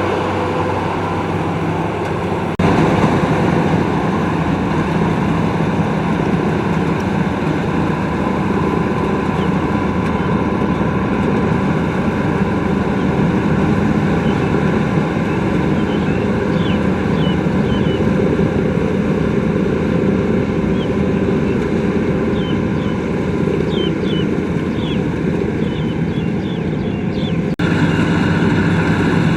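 Rice combine harvester running steadily under load, a continuous engine and machinery drone, with a sudden jump in the sound about two and a half seconds in and again near the end.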